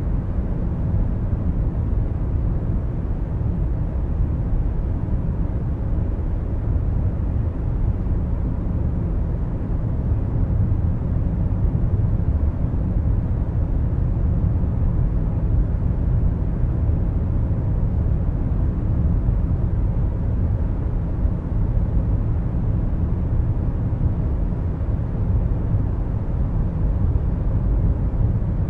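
Steady low rumble of tyre roar and engine noise inside a car cabin while cruising at motorway speed.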